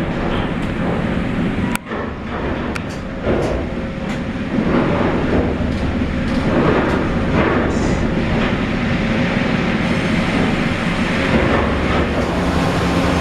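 USNR Sharp Chain twin band saw running as it saws logs: a steady loud machinery noise, with several sharp knocks in the first few seconds.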